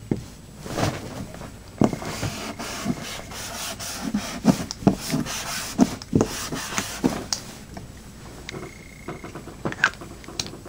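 Joystick Tuff paint marker's tip scratching and tapping across a whiteboard as letters are written, in irregular short strokes with sharp taps.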